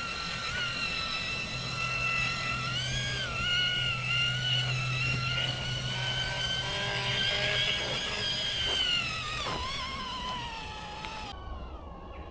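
Electric motor and gearbox of an RC rock crawler whining as it crawls over rocks, the pitch rising and falling with the throttle. The whine dips sharply about nine and a half seconds in and fades out near the end.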